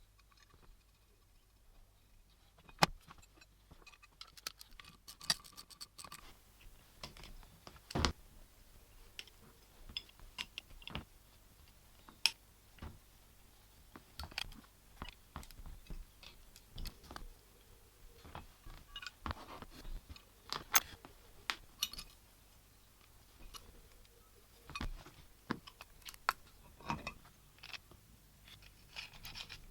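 Small metal parts being handled on a workbench: scattered, irregular clicks, taps and light clinks, with a few sharper knocks, the loudest about 3, 8, 12 and 21 seconds in.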